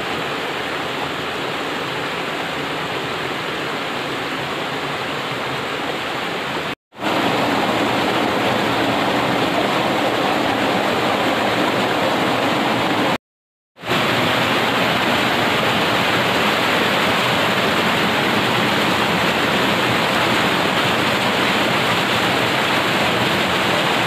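Water pouring over a small rocky waterfall and cascading down a stream: a steady rush of water. It drops to silence twice for a moment, about 7 and 13 seconds in, and is a little louder after the first break.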